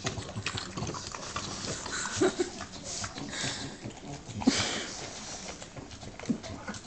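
Bulldogs licking and smacking their lips over peanut butter, with noisy breathing through their short noses; a louder burst of breath about four and a half seconds in.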